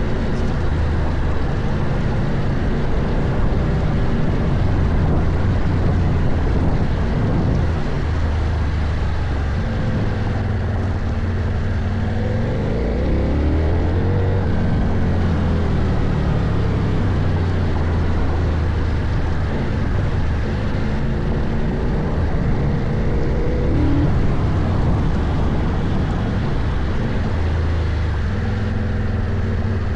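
CFMOTO Ibex 800 adventure motorcycle's parallel-twin engine running under load off-road, its pitch rising and falling as the throttle is worked. Quick revs come about halfway through and again a few seconds later.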